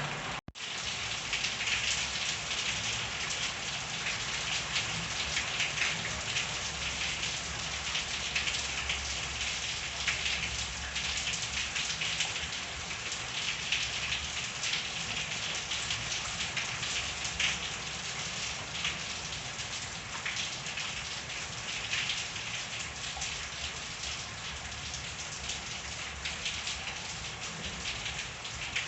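Steady rain falling on surfaces, a continuous hiss dotted with individual drops hitting. The sound cuts out for an instant about half a second in.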